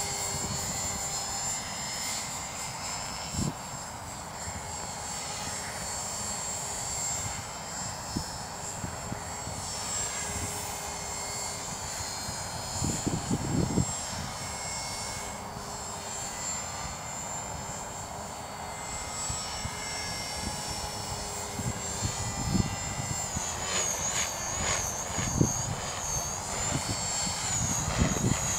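Align T-Rex 450 Pro electric RC helicopter flying at a distance: a steady high-pitched whine from its brushless motor and rotor head, with a fainter lower hum. Irregular low thumps come and go, strongest about halfway through and near the end.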